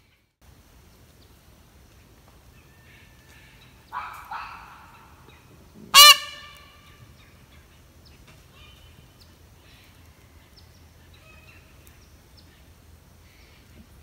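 Indian peafowl (peacock) honking: two short harsh calls about four seconds in, then one very loud, ringing call about two seconds later that quickly dies away.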